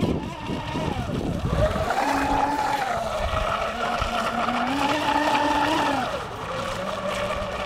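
Brushed electric motor of a radio-controlled offshore speedboat whining at speed, its pitch rising and falling several times as it speeds up and slows.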